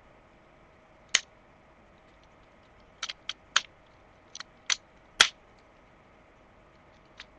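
Plastic joints and parts of a Transformers Armada Optimus Prime action figure clicking and snapping into place as it is transformed by hand. About ten sharp clicks come at uneven intervals, bunched between three and five seconds in, and the loudest is a little after five seconds.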